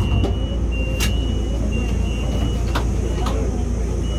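Light-rail tram running, heard from on board: a steady low rumble with a few sharp clicks and knocks and a thin high tone that comes and goes.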